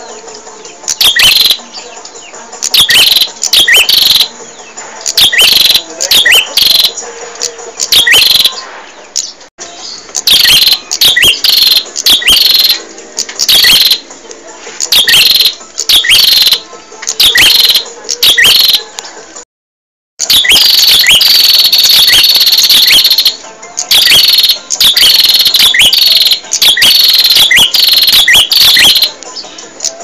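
Prenjak (prinia) singing: loud bursts of sharp, rapid chirps, repeated about once a second. The song cuts out briefly about twenty seconds in, then comes back as a denser, more continuous run of chirping.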